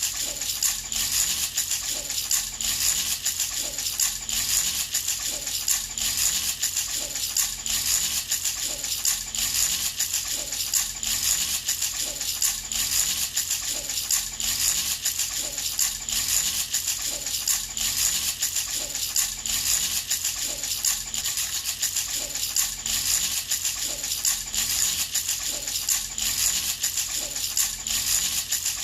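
A baby's rattle shaken by hand, steadily and rhythmically, its beads or pellets rattling without pause.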